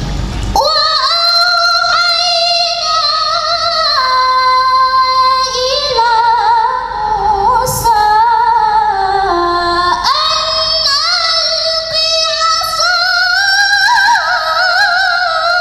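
A woman reciting the Qur'an in the melodic, maqam-based tilawah style: long, high, held notes with rapid ornamental turns and wavering pitch, taking a short breath about ten seconds in.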